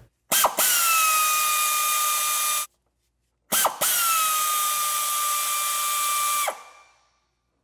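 Air-powered wrench spinning out bracket bolts in two runs, one about two seconds and one about three, each a steady high whine over hissing exhaust air. The first run cuts off abruptly; the second winds down at the end.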